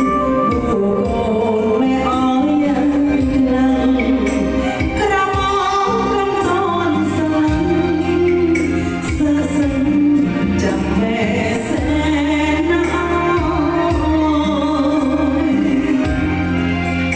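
A woman singing a Khmer song into a microphone over band accompaniment with a steady drum beat.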